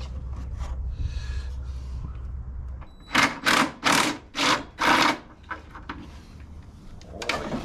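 Tool work on an old table saw's housing while the power box is being removed: a low hum that stops about three seconds in, then five quick rasping strokes about three a second, and one more near the end.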